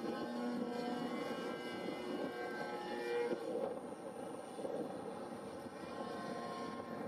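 Radio-controlled Slick 540 aerobatic model plane with a 30cc engine flying overhead, the engine and propeller running continuously. The engine note rises over the first three seconds or so and then drops back as the throttle changes through a manoeuvre.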